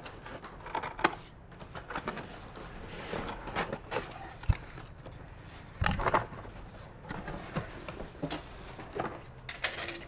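Large cardboard box being handled and turned over on a wooden table: rubbing and scraping of cardboard with scattered knocks and thumps.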